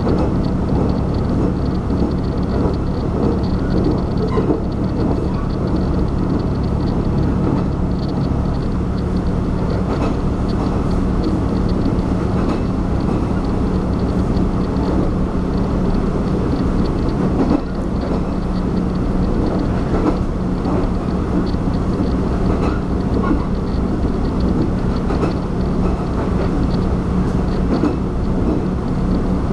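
A diesel railcar running steadily at speed, heard from inside the carriage: a continuous rumble of wheels on rail under a steady low engine drone, with faint scattered clicks.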